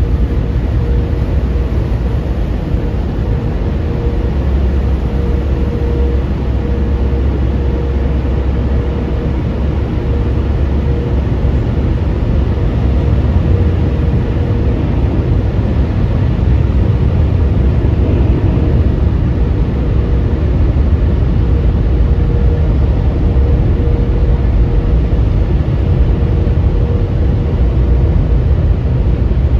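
Automatic car wash machinery heard from inside the car cabin: a loud, steady rumble with a constant hum.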